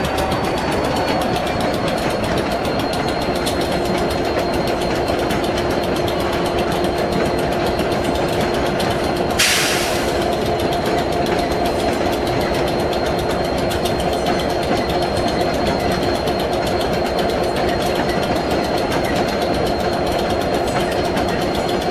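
EWS Class 67 diesel locomotive's two-stroke V12 engine idling with a steady, rapid chatter. A short, sharp hiss of air comes about nine and a half seconds in.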